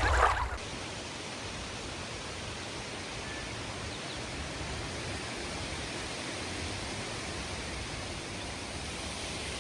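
A steady, even rushing hiss with no distinct sounds in it, after music cuts off about half a second in.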